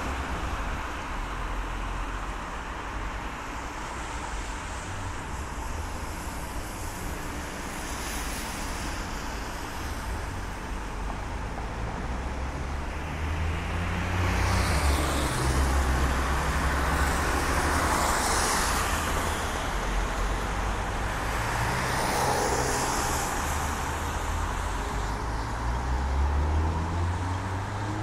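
Cars passing on a wet road, with tyre hiss over a steady low rumble; several pass one after another in the second half, each swelling up and fading away.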